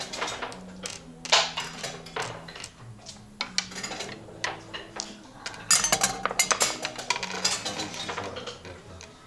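Wooden backgammon checkers clacking as they are picked up and set down on the wooden board, with a rapid flurry of clicks about six seconds in. Faint background music with low held notes underneath.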